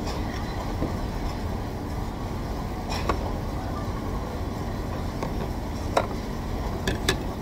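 Steady low background hum of a busy restaurant, with a few sharp clinks of tableware: one about three seconds in, one about six seconds in, and two close together near the end.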